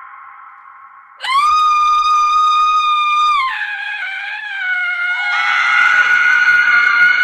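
Women screaming as a horror sound effect: a scream dies away, then about a second in a loud, high, held scream lasts about two seconds. It drops lower and wavers, and another high, sustained scream starts around five seconds in.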